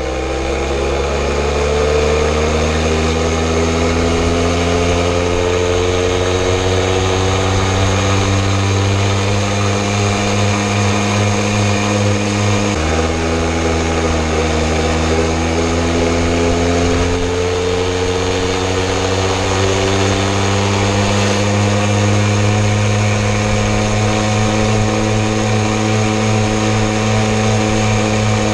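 Jawa Babetta moped's small single-cylinder two-stroke engine running under way, heard from the rider's seat. Its pitch climbs gradually, drops abruptly about 13 seconds in, then climbs again.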